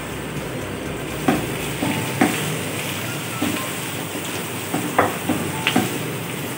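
Bitter gourd pieces sizzling steadily in oil in a non-stick wok as a slotted spatula stirs them, with several sharp knocks of the spatula against the pan.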